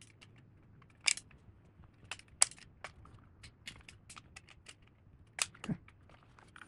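Irregular small clicks and taps of hands and a tool working wiring: an earth wire being fitted into the terminal of a metal-cased dimmer switch, with a few sharper knocks among them.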